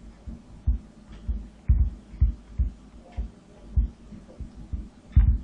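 Faint, muffled low thumps in an uneven beat, about two a second, over a light hiss.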